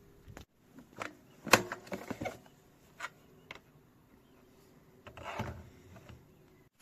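Quiet music that cuts off about half a second in, followed by scattered light knocks and clicks of objects being handled. The sharpest knock comes about a second and a half in, and a small cluster comes near the end.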